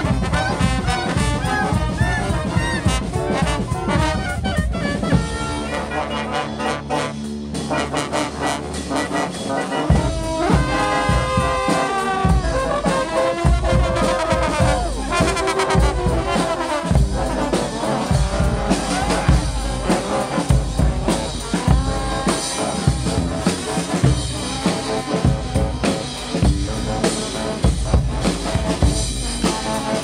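Live street brass band: trombones, trumpets and clarinet over sousaphone, bass drum and snare. About five seconds in the drums drop out and low held notes carry on, and then the drums come back in strongly about ten seconds in.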